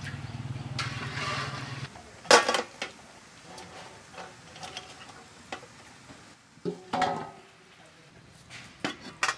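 Aluminium bowls and basins clanking as they are handled and set down: a loud metallic clatter about two seconds in, another cluster of knocks around seven seconds, and lighter knocks between.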